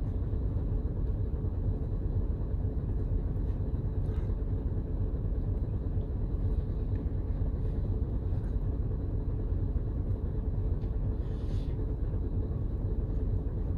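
Steady low rumble of an idling truck engine heard from inside the cab, with a few faint ticks of chewing and handling food.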